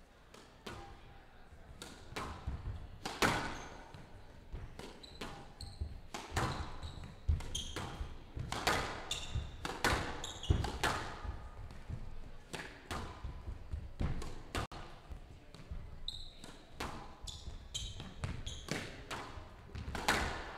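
A squash rally: the ball cracking off the racket strings and smacking the front wall and glass walls in a rapid, irregular exchange of hits, with short squeaks of court shoes on the floor between shots.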